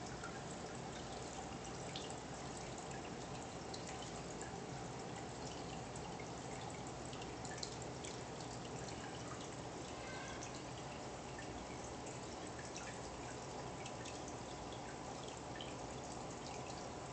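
Steady trickle of aquarium water with small drips and a few faint ticks.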